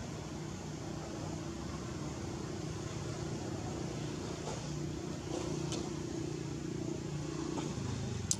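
Steady low engine hum under a background hiss, with a few faint ticks in the second half and a sharp click near the end.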